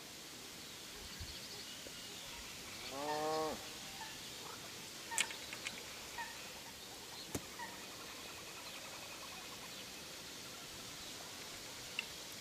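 A single drawn-out animal call with a rich, slightly arching tone about three seconds in, over a faint outdoor hiss. A few sharp clicks come later.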